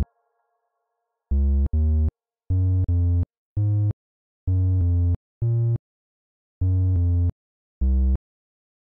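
Ableton Wavetable synth bass sounding short single low notes one at a time, at changing pitches and irregular spacing with silence between: individual notes being auditioned in a piano roll rather than a playing loop. About a dozen notes, each cut off abruptly.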